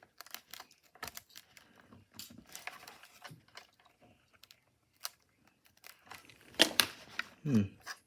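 Hands working at a small plastic part of an old transistor radio: scattered clicks, taps and scrapes. About six and a half seconds in comes a louder clatter, followed by a short tone that drops in pitch.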